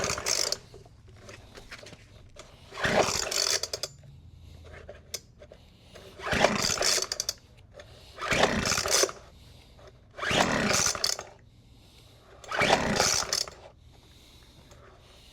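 Recoil starter of a Weed Eater FB25 25cc two-stroke leaf blower being yanked about six times, each pull a whirring rasp of about a second, a couple of seconds apart. The choked engine turns over but never fires: a no-start.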